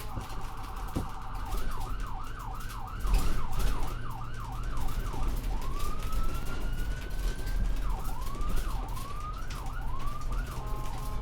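Ambulance electronic siren cycling through its tones. It starts with a rapid warble, then a fast yelp sweeping up and down about two and a half times a second. It then gives one slow rising wail and a slower yelp, and settles into a steady tone near the end, over a low vehicle rumble.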